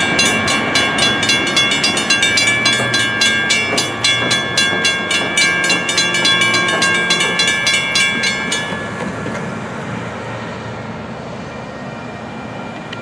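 Railroad grade-crossing bell ringing in rapid, evenly spaced strokes, stopping about nine seconds in as the crossing gates rise. Underneath, the rumble of the departing intermodal freight train fades away.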